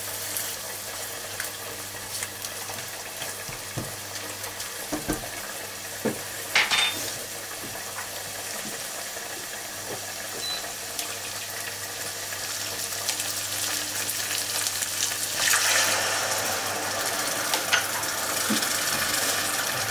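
Sliced mushrooms, onion and garlic sizzling in a nonstick frying pan as white wine cooks off in it, with a few knocks of a silicone spatula against the pan in the first several seconds. The sizzle grows louder from about halfway through.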